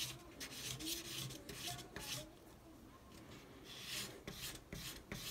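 Carving-knife blade being sharpened on wet sandpaper: a run of short scraping strokes as the blade is rubbed back and forth on the abrasive. The strokes pause for about a second and a half midway, then resume.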